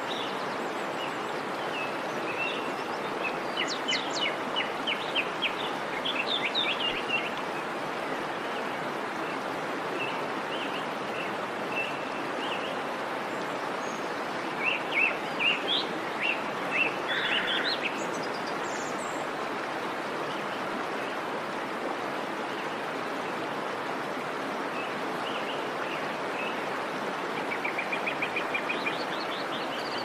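Waterfall water rushing steadily, with songbirds chirping in quick series of short notes three times: a few seconds in, around the middle, and near the end.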